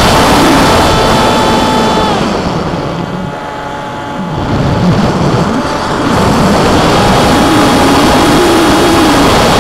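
Electric motor and propeller of a Skyfun foam RC plane, heard through its onboard camera under heavy wind rush. The motor's whine drops in pitch about two seconds in and fades as the throttle comes back, the overall noise dips for a moment, and the whine returns at its earlier pitch about seven seconds in.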